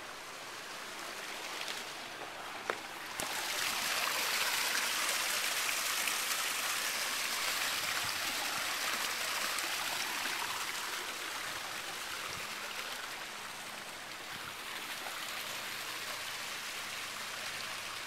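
Water running down a stone waterfall into a pool: a steady rush that grows louder about three seconds in, with a single sharp click just before.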